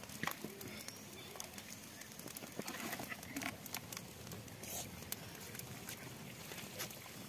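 Small open wood fire crackling, with scattered sharp snaps at irregular times over a steady faint hiss.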